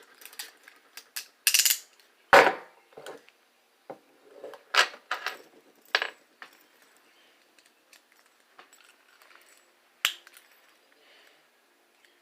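Metal handcuffs being handled: a string of sharp clicks and clinks at irregular intervals, thickest over the first six seconds, with one more click about ten seconds in.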